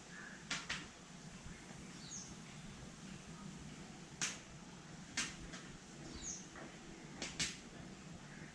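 Sharp clicks and taps from hand work on a bicycle wheel, as the tyre is worked off the rim, coming about six times in irregular pairs and singles. A bird chirps briefly twice in the background.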